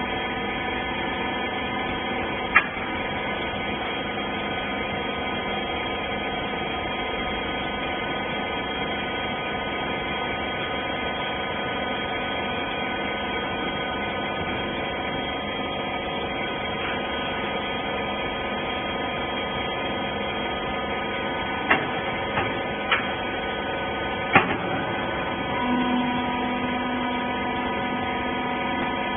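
Wiper baling machine running with a steady mechanical hum. Sharp clicks sound once near the start and several times about three quarters of the way through, and a lower tone joins the hum near the end.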